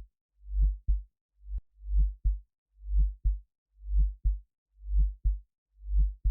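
Synthesized heartbeat: deep double thumps, each a longer swelling beat followed by a short, sharp one, repeating about once a second. A fainter single thump comes about one and a half seconds in.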